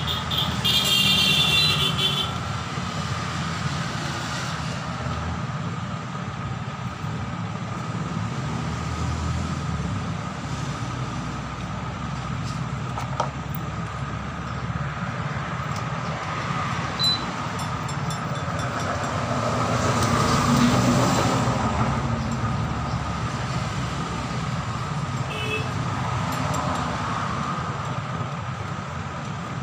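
Steady background vehicle noise with a constant hum. A short high-pitched horn toot comes just after the start, and one vehicle grows louder and fades away about two-thirds of the way in.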